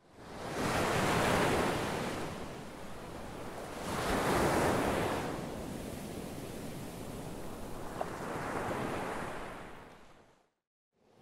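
Surf-like rushing noise that swells three times, about three to four seconds apart, and fades out shortly before the end.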